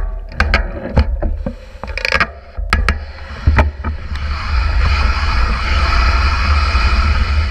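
Wind rumbling on a mountain bike's wheel-mounted camera microphone, with scattered sharp clicks and knocks from the bike for the first few seconds. About four seconds in, a steady rolling hiss of knobby tyres on the dirt trail sets in as the bike gets moving downhill.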